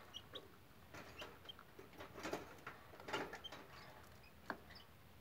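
Serama chicken pecking and scratching in its cage, faint irregular taps with a few short, high peeps in between.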